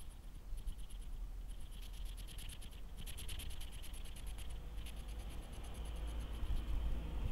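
A hedgehog right up against the camera: dry scratching and rubbing sounds, heard as short runs of rapid fine clicks that come and go, over a low rumble.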